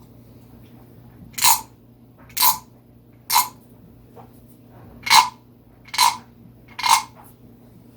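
A wooden frog rasp, a frog-shaped guiro, scraped six times with its wooden stick along the ridges on its back. The short rasps come in two groups of three, about a second apart.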